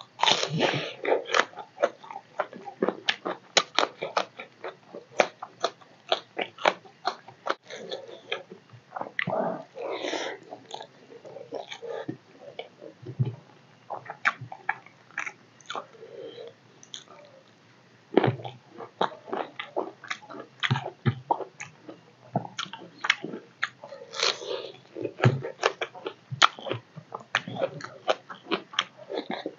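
Close-miked mouth sounds of a man eating rice and fish curry by hand: wet chewing and rapid lip-smacking clicks, with a short lull a little past halfway.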